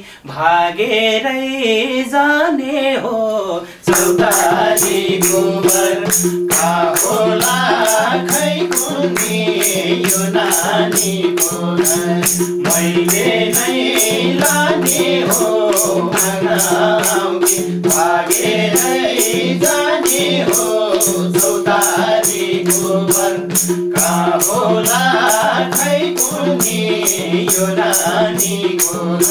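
Nepali lok dohori singing: a male voice sings alone for the first few seconds. About four seconds in, the band joins with a steady held note and a fast, even madal-led beat, and the singing carries on over it.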